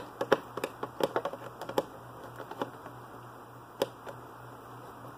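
Quick, light clicks and taps of small tools handled on a hard tabletop, dense at first and thinning out after about two seconds, with one sharper tap near four seconds, over a faint low hum.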